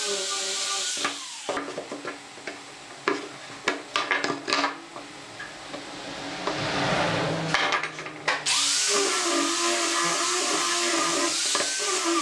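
Small angle grinder with a sanding disc running and sanding a curved wooden board: a steady motor whine with the hiss of abrasive on wood. It stops about a second and a half in, giving way to scattered sharp clicks and knocks of boards and a hand tool being handled. The grinder starts sanding again about eight and a half seconds in.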